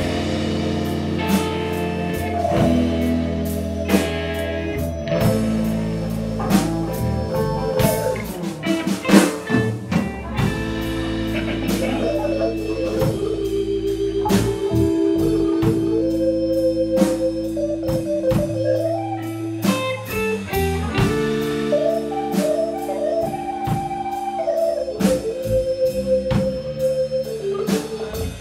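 A live blues band playing an instrumental passage with no vocals: electric guitar, keyboard with held organ chords, bass and drum kit.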